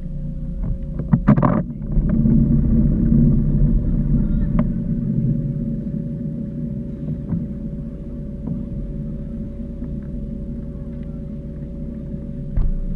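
A steady mechanical hum with a low rumble and a couple of held tones, broken by a few light knocks and a short louder burst about a second and a half in.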